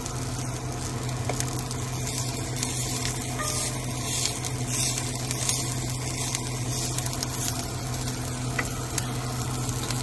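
Chopped kale sizzling in a hot skillet on a stovetop: a steady hiss with scattered crackles.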